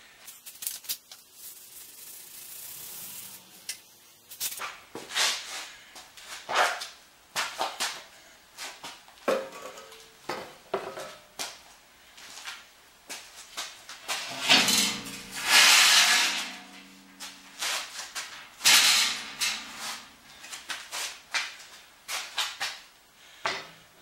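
Metal parts and hand tools clanking and clattering on a workbench, a string of separate knocks, with a longer scrape and a brief metallic ring about fifteen seconds in.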